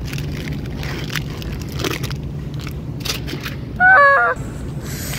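Plastic-wrapped block of sliced cheese crinkling and rustling as it is taken off a refrigerated shelf. About four seconds in comes a short, loud, single-pitched squeak of about half a second.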